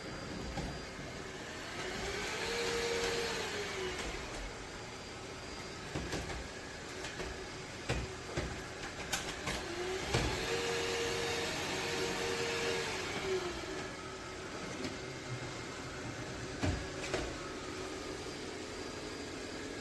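Ecovacs Deebot T80 Omni robot vacuum-mop running with a steady motor hum; twice a motor winds up to a steady whine, holds for a second or two and winds down again, with scattered clicks and knocks throughout.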